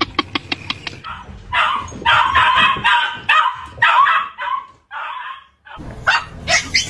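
Dogs vocalising. First comes a quick, even run of pitched yowling pulses, about seven a second, from a dog held and petted with its mouth wide open. About a second and a half in, a beagle gives high-pitched excited yelps and barks for about three seconds.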